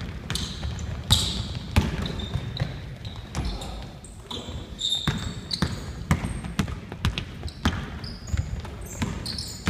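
Basketball bouncing on a court floor during play: repeated sharp thuds at an uneven pace, with short high squeaks of sneakers on the court in between.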